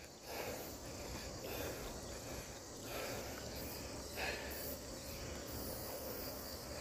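A cyclist's faint breaths, roughly once a second at first, as he catches his breath after a hard stretch, over a steady rumble of wind on the microphone.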